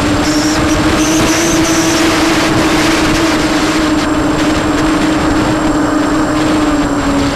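Electric motors and propellers of a 250-size EMAX FPV quadcopter in flight, heard from the onboard camera: a loud, steady buzzing hum over a hiss of rushing air. The hum climbs a little in pitch about a second in and sags slightly toward the end.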